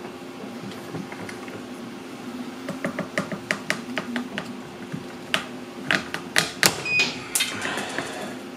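3D-printed PolyMax PLA hook creaking and crackling as it is pulled under rising load, the clicks coming faster and louder until it breaks with a sharp crack about six and a half seconds in, over a steady low hum.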